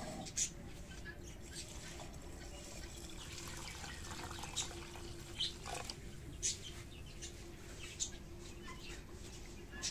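Water poured from a clay jug into a clay pot of split lentils, then splashing as the lentils are rubbed and washed by hand. A few short, sharp sounds are scattered through it.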